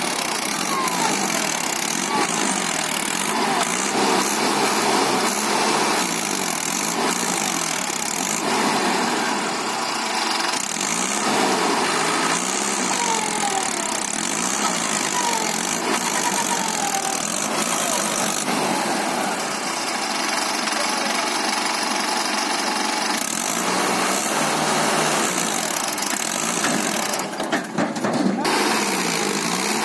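Mahindra 555 DI tractor's diesel engine running under load as it strains to pull a brick-loaded trailer with its rear wheels sunk in mud, with voices over it.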